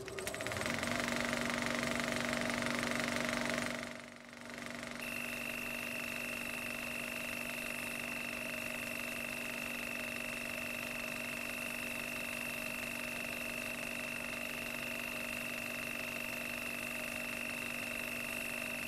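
Eerie ambient drone on a horror film soundtrack: several held tones over a hiss, dipping briefly about four seconds in, after which a high whine joins and holds.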